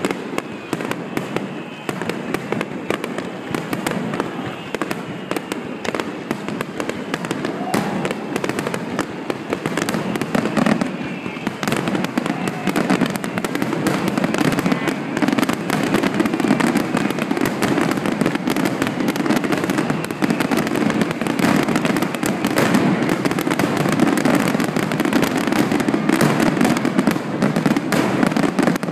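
Fireworks finale: a dense, continuous barrage of shell bursts and crackling, getting louder about halfway through.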